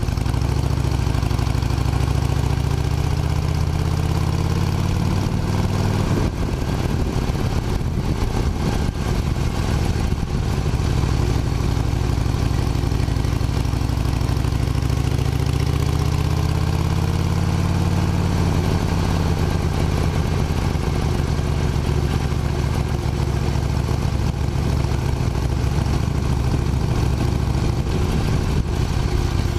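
Harley-Davidson Forty-Eight's air-cooled V-twin running under way. The engine note climbs over the first few seconds, breaks off abruptly about six seconds in, then rises and falls again through the middle before settling to a steady drone.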